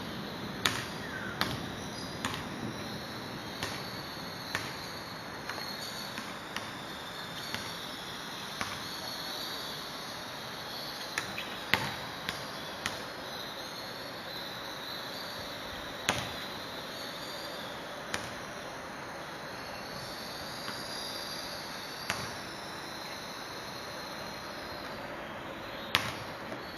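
Outdoor ambience: a steady high insect trill, with scattered sharp ticks every second or two.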